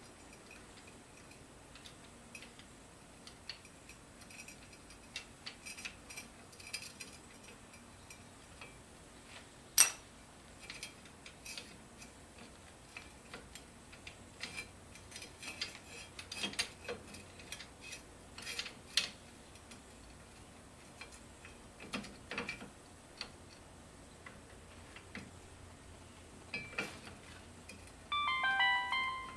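Hand tools and metal parts clicking and clinking in scattered, irregular taps during reassembly of the UTV's front brake and axle, with one sharp, much louder clink about ten seconds in. Near the end a quick run of short pitched electronic notes sounds for about a second.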